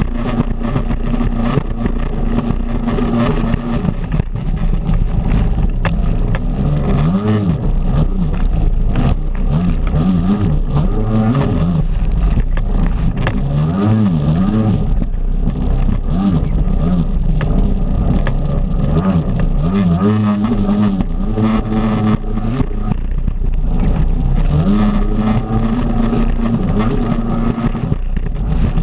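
Jet ski engine running hard under load, its pitch rising and falling again and again as the throttle is worked, steadier near the start and the end. Water rushing and splashing against the hull underneath.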